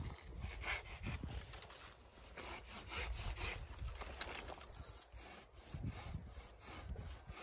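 Hand pruning saw cutting through a low apple branch with quick, even back-and-forth strokes, the teeth rasping through the wood.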